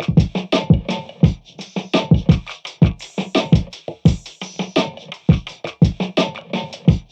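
Electronic background music with a steady drum-machine beat: regular kick drums, snare and hi-hat hits.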